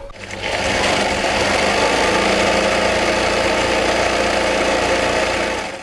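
Electric sewing machine running steadily at speed, stitching a long strip of material; it speeds up over the first half second.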